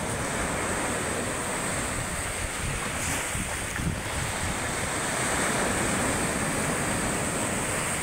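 Sea surf washing in over a pebble beach, a continuous rush of breaking waves and fizzing foam, with wind buffeting the microphone.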